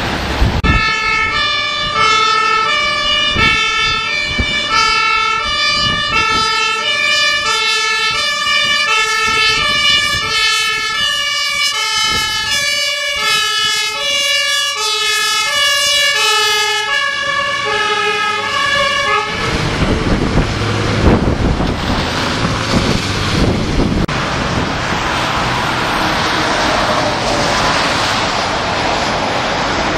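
German fire engine's two-tone siren (Martinshorn) alternating between a high and a low note. It stops suddenly about two-thirds of the way through, leaving steady vehicle and road noise.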